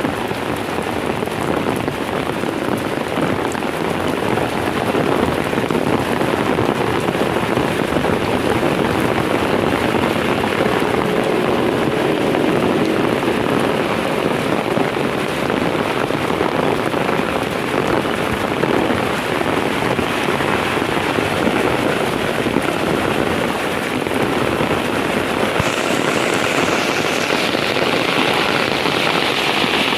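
Heavy rain falling steadily: a dense, continuous hiss of rain on surfaces, with the higher part of the hiss growing stronger in the last few seconds.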